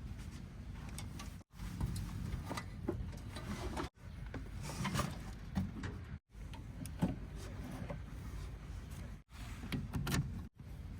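Heavy machinery engines rumbling at a steady low pitch, with occasional knocks and clanks, broken by several abrupt cuts between short clips.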